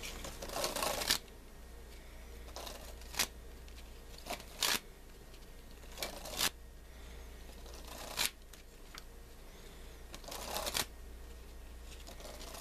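A deck of playing cards being sprung and cascaded from hand to hand, a short riffling burst every second or so, with two longer riffles near the start and about ten seconds in. A steady low hum sits underneath.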